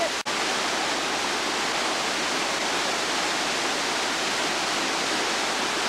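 Steady rush of water pouring over the rock cascades of a waterfall. The sound drops out for an instant about a quarter second in, at a cut in the recording.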